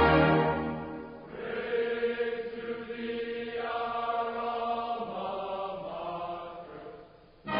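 Music fades out about a second in, giving way to a sustained chant of many voices that carries on for several seconds and dies away near the end.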